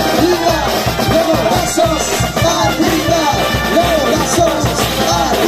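Live brass band playing: trumpets, saxophones and sousaphones carry the melody over congas, hand cymbals and a drum kit keeping a steady beat.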